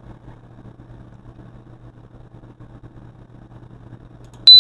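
A low, steady electrical hum, then near the end one short, sharp, high-pitched electronic beep, the loudest sound.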